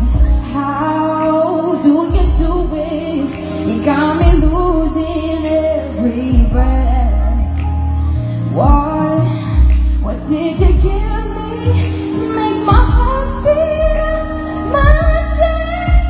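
Female singer singing live into a handheld microphone over loud, bass-heavy musical accompaniment, amplified through the stage sound system.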